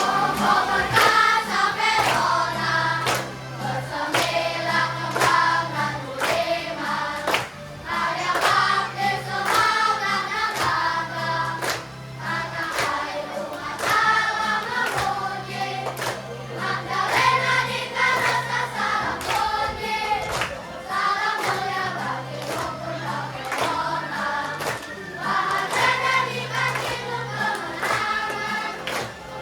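Children's choir singing a song with instrumental accompaniment: a held low bass note under the voices and a regular beat.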